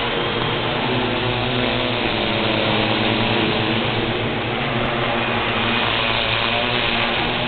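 Small multirotor drone's electric motors and propellers running in flight: a steady whirring hum of several tones that drift slightly up and down.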